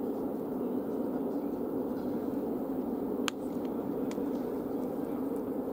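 Steady outdoor background noise, strongest in the low-middle range, with one sharp click a little past halfway.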